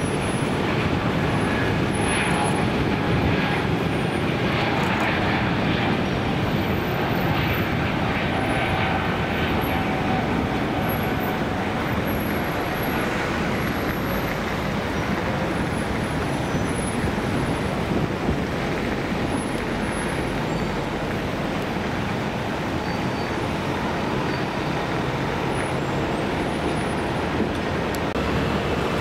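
Turbofan engines of an Embraer jet airliner at takeoff power on its departure roll: a steady rushing noise with faint whining tones over the first half, easing slightly in the last third as the jet moves away.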